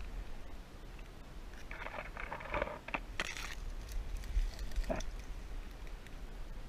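Dry pine twigs and needles crackling and rustling as someone pushes through low branches and scrub, over a low rumble of the camera being jostled. The crackling is heaviest around the middle, with a last snap about five seconds in.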